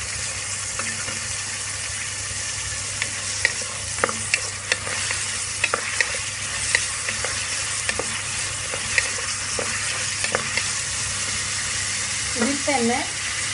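Sliced onions sizzling in hot oil in a metal pot while a wooden spoon stirs them, with scattered clicks and scrapes of the spoon against the pot.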